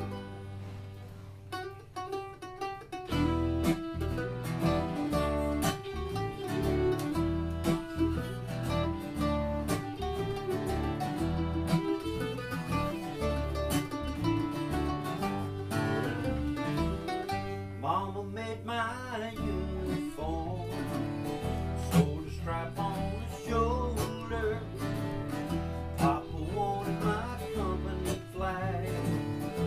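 Small acoustic bluegrass band playing a song, with fiddle, mandolin and guitar. A thinner opening fills out into the full band about three seconds in.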